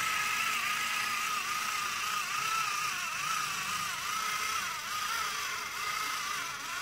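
Battery-powered TrackMaster toy train motors whining under load as two toy engines push against each other, a thin high hum that wavers up and down in pitch over a light hiss.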